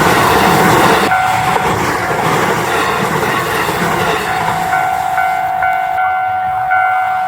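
A train running through a railway level crossing, its wheel and rail noise dropping off about a second in. The crossing's electronic warning bell rings steadily and repeats throughout.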